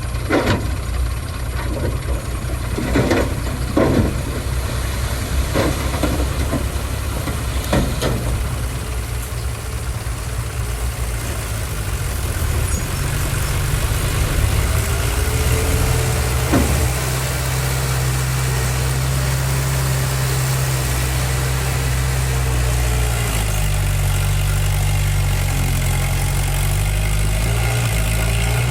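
Diesel engine of heavy earthmoving machinery running with a steady low drone, with several sharp knocks in the first eight seconds. The engine gets louder from about twelve seconds in and stays steady.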